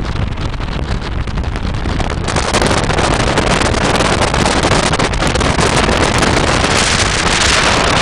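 Car driving along a road: a steady low rumble of engine and tyres with wind buffeting the microphone, getting louder and hissier about two seconds in.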